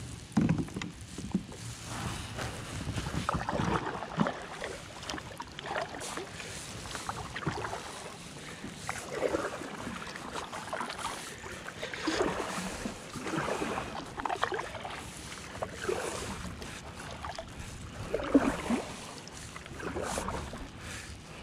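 Kayak paddle blades dipping into and pulling through calm river water, a swishing splash every second or two as the kayak is paddled along.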